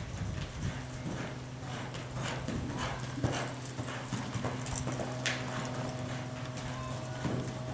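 Hoofbeats of a horse loping on a soft dirt arena floor, over a steady low hum.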